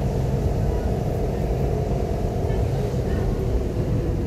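An engine running steadily: a low drone with a constant hum, no change in pitch.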